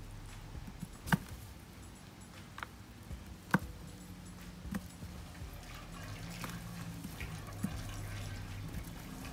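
Hands crumbling a potting-mix root ball, with soil and perlite grains trickling into a plastic tub. Scattered small ticks include two sharp clicks, about a second in and about three and a half seconds in, over a faint steady low hum.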